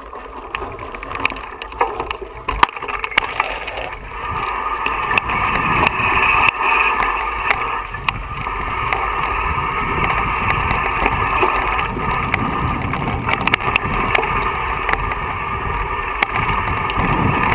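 Mountain bike riding fast down a rocky, dry trail, heard from a handlebar-mounted camera: a continuous rattling rush of tyres on dirt and stones, full of sharp knocks as the bike jolts over rocks. The rush grows louder about four seconds in.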